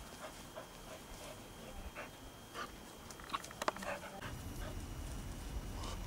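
Dog panting as it runs about on grass, with a few sharp clicks a little past the middle and a low rumble in the last couple of seconds.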